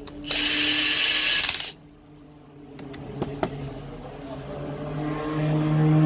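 Cordless power screwdriver running in one short, loud burst, then a couple of seconds later a small electric motor whirring with a pitch that rises slowly as it gets louder.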